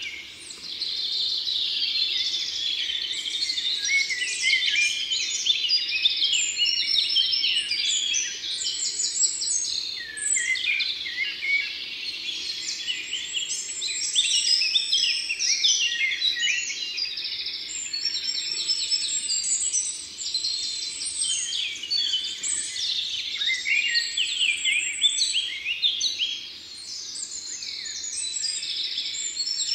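Many songbirds singing at once: overlapping chirps, trills and fast repeated notes.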